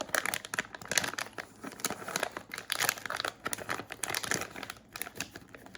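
Plastic food wrapper crinkling and crackling as it is handled and pulled open, in irregular quick bursts.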